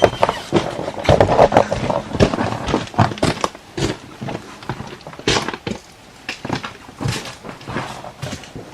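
Footsteps with scuffs and knocks as a removed car wheel and tire is moved aside.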